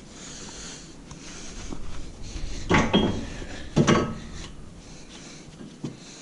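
Metal brake parts and tools being handled: clinks and rattles, with two louder clanks about three and four seconds in and a soft hiss at the start.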